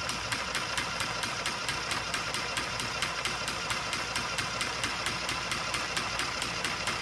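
Small electric mini sewing machine running steadily, its motor humming under a fast, even tapping of the needle mechanism at about six strokes a second.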